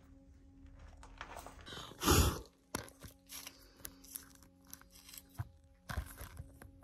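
Low, steady droning background music, with scattered small knocks and crunches over it; the loudest is a short, noisy crunch about two seconds in.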